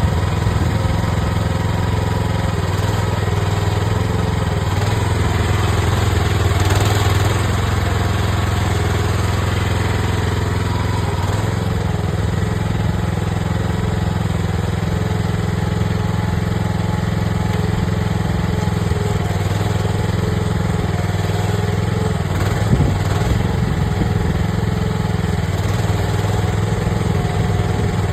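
AGT mini excavator's engine running steadily while it digs, swelling briefly about seven seconds in, with a short sharp clatter about two-thirds of the way through.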